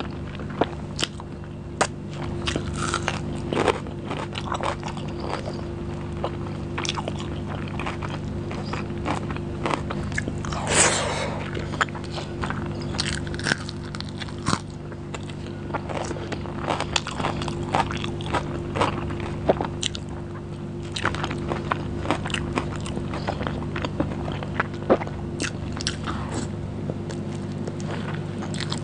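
Close-miked eating by hand: biting and chewing biryani and chicken curry, heard as many short, sharp mouth clicks and crunches, with a louder, longer mouth sound about eleven seconds in. A steady low hum runs underneath.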